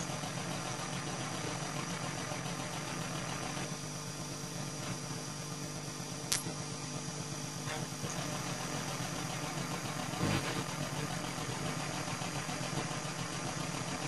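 Abstract experimental electronic music played from a vinyl record: a steady low hum-like drone with faint high steady tones. A sharp click comes about six seconds in and a short low thump about ten seconds in.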